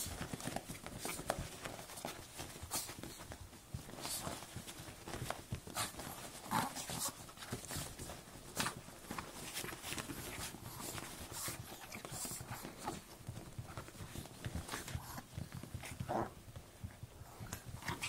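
Russian toy terrier puppies snuffling and scrambling about on a bed, with the bedding rustling under them: many short, irregular soft noises.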